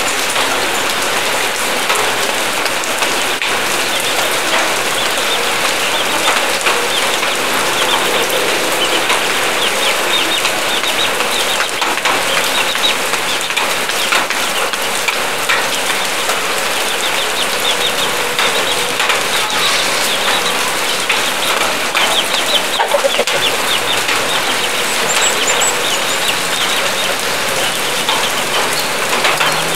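Steady rain hiss, with chickens clucking now and then over it.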